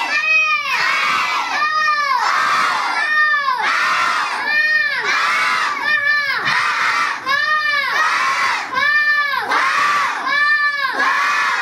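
A class of young children chanting loudly in unison, reciting the Hindi alphabet (varnamala) letter by letter as the letters are pointed out. The chant has a steady sing-song beat, and each call rises and then falls in pitch.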